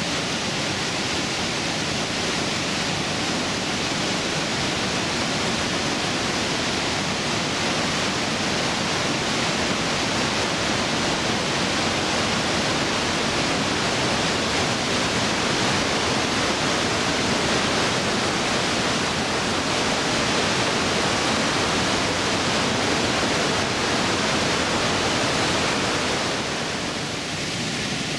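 Glacier-fed waterfall rushing through an enclosed rock gorge inside the mountain: a loud, steady wash of falling water, a little quieter near the end.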